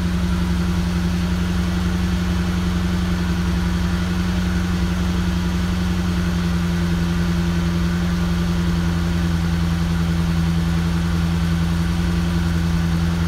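Exhaust of a 1972 Mercedes-Benz 350SL's V8 idling steadily at the tailpipes, shortly after a cold start.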